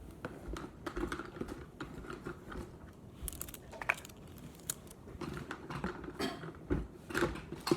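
Bangle bracelets clicking and clacking against each other as they are handled, a quick irregular run of small hard knocks with a few brief rings.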